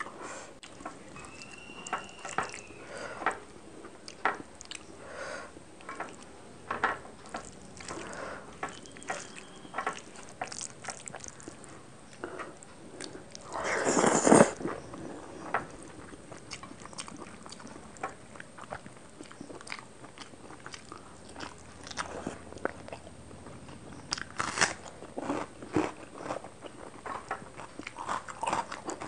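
Close-miked eating of rice and fish curry by hand: wet mixing of rice and gravy with the fingers, chewing and bites, with short smacks and clicks throughout. About halfway comes one louder, longer slurp as a handful goes into the mouth.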